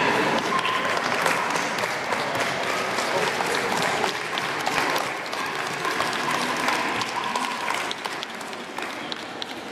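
Audience applauding steadily, the clapping dying away a little towards the end.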